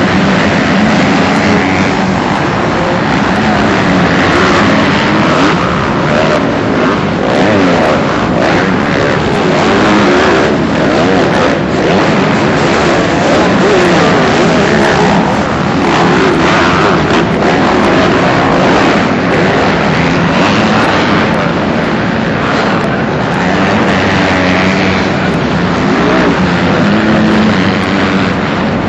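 A pack of motocross dirt bikes racing, their engines revving up and down as they accelerate and shift, with many overlapping pitches rising and falling.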